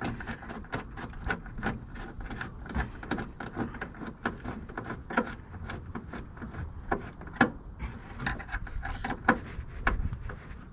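Irregular light clicks and taps of a nut, lock washer and bolt being handled and threaded together to secure a car aerial, with a few sharper knocks.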